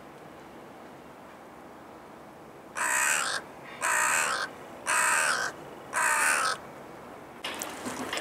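Carrion crow cawing four times, about a second apart, each caw a little over half a second long.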